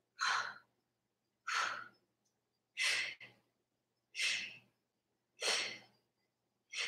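A woman's short, forceful breaths, one puff about every 1.3 seconds, six in all, paced by her reps of a side plank with a dumbbell lift.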